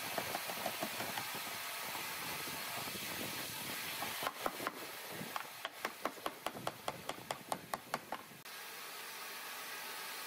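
Wooden mallet knocking a table rail's tenon into the mortise of a turned wooden leg: a few scattered taps, then a quick run of about a dozen sharp knocks at roughly five a second, over a steady hiss.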